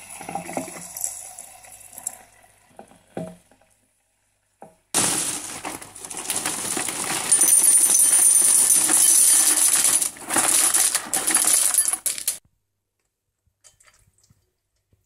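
Cookie Crisp cereal poured from its box into a bowl: a dense rattle and clatter of small pieces that lasts about seven seconds and stops suddenly. Before it, a pod coffee machine finishes dispensing into a mug, fading out.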